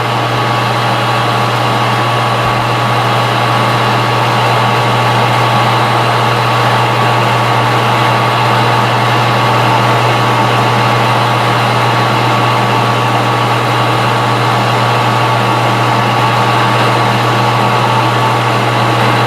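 Metal lathe running steadily with a strong low hum and several steady whining tones, while a cut is hand-fed into the face of bar stock.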